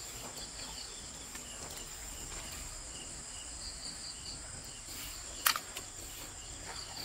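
Night insects, crickets, chirring steadily in a high, even drone with faint repeated chirps. One short sharp noise comes about five and a half seconds in.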